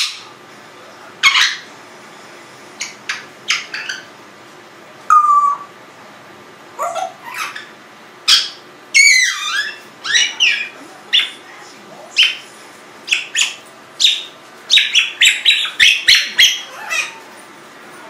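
Congo African grey parrot making a string of short whistles, chirps and squawky squeaks, one at a time with pauses between. About nine seconds in comes a longer warbling whistle that glides up and down, and the calls come thicker near the end.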